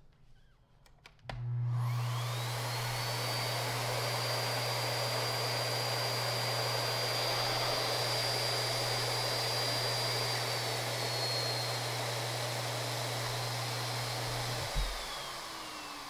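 Miele Art S930 upright vacuum cleaner switched on and off at its foot-operated power switch. A few switch clicks come first, then the motor spins up with a rising whine and runs steadily, its pitch dipping slightly about ten seconds in. Near the end a thump switches it off and the motor winds down with a falling whine.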